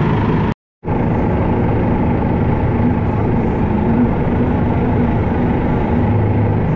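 Case IH Quadtrac 600 tractor's diesel engine running steadily under load while it pulls a Väderstad TopDown cultivator through stubble. The sound cuts out for a moment about half a second in.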